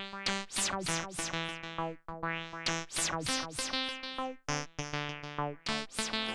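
Background electronic music: a synthesizer playing a rhythmic run of plucked-sounding notes.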